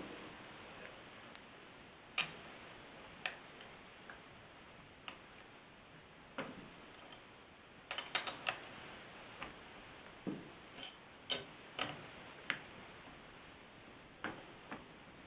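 Scattered, irregular clicks and knocks of hand tools on a chainsaw clutch as it is tightened down onto the shaft with a clutch tool, a few quick taps in a row about eight seconds in.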